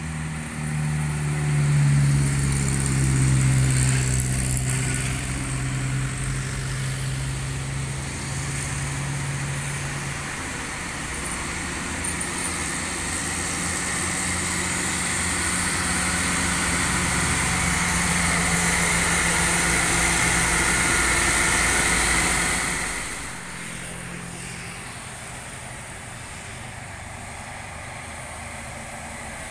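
Heavy diesel trucks climbing a hill and passing close by. A deep engine drone is loudest in the first few seconds, then gives way to a building hiss and whine of tyres and engine that drops off suddenly about 23 s in, leaving fainter traffic.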